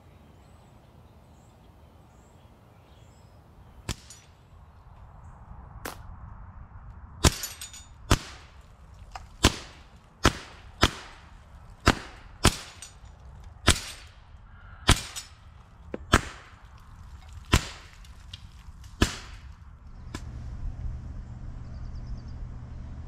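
AEA HP SS .22 PCP air rifle firing semi-automatically: a string of about fourteen sharp shots, spaced roughly half a second to two seconds apart.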